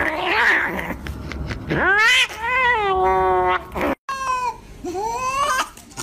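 Domestic cats yowling in long, drawn-out calls. One call rises, holds steady and trails off. After a sudden break about four seconds in, a second cat wearing a cone collar yowls in shorter rising calls while being held down.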